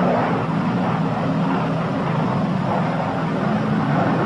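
Steady drone of the Northrop P-61 Black Widow's twin Pratt & Whitney R-2800 radial engines and propellers on a gear-down landing approach, heard on an old film soundtrack.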